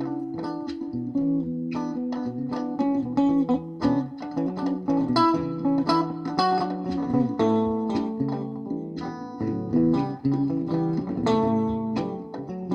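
Background music: guitar playing quickly picked notes, with bass underneath.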